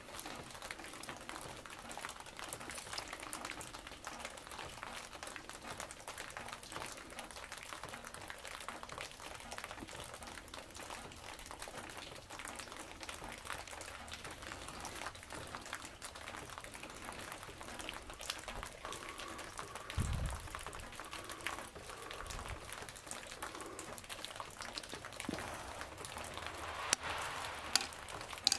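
Steady fine crackling hiss with scattered soft ticks. Partway through come a faint steady tone lasting a few seconds and a low thump, and a few sharper ticks come near the end.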